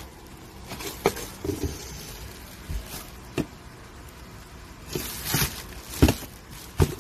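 Unpacking noises: a glass cooker lid and non-stick pot being handled in their cardboard box, with a few sharp knocks and clatters and plastic wrapping rustling about five seconds in.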